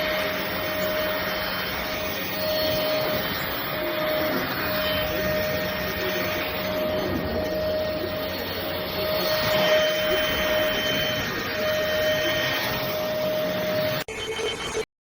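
NADALY cordless stick vacuum cleaner running steadily with a constant whine. It breaks off suddenly near the end, and a short, different sound follows before everything stops.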